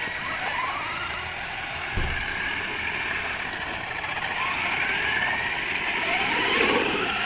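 Small electric motors of toy radio-controlled cars whining up and down in pitch as they drive about, with a dull thump about two seconds in.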